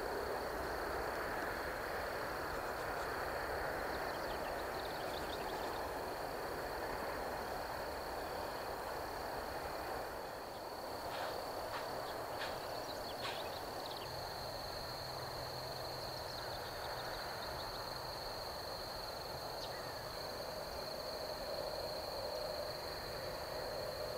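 Outdoor woodland ambience: a steady high insect drone over an even wash of distant traffic noise, with a few short calls about halfway through.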